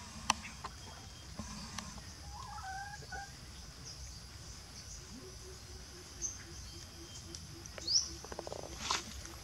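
Outdoor rural ambience: domestic fowl calling, with a run of soft, evenly spaced clucks from about halfway, over a steady high insect drone. There are small scattered clicks and rustles of dry leaves being handled.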